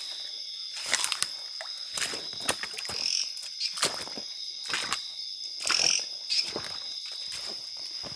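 Steady high-pitched night chorus of calling insects and frogs, with footsteps on wet leafy ground stepping about once or twice a second.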